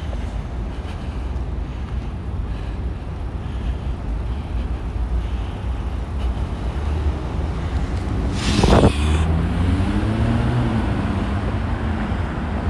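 Steady low rumble of skateboard wheels rolling on the asphalt of a road underpass, with traffic around. About two-thirds of the way through comes a brief loud hiss, then a vehicle engine whose pitch rises and falls as it accelerates.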